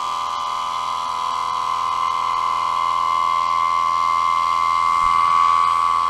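Vacuum pump running with a steady high-pitched hum, growing slightly louder, as it draws down the sealed chamber.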